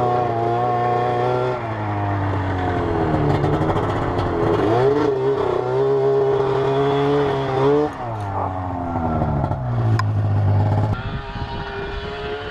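Arctic Cat M6 mountain snowmobile's two-stroke twin engine, fitted with D&D power pipes, revving up and down repeatedly as it works through deep powder, with a sharp click about ten seconds in and the engine easing off near the end.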